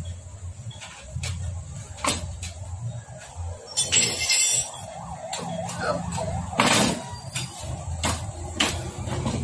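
Hero Splendor Plus engine casing being handled and turned over on a workshop bench: irregular metal clicks and knocks, a scraping rattle about four seconds in and a heavier knock near seven seconds, over a steady low hum.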